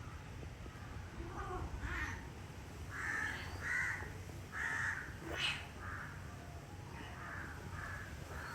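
A series of short, harsh animal calls, roughly two a second, in two runs: one about three seconds in and one about six seconds in.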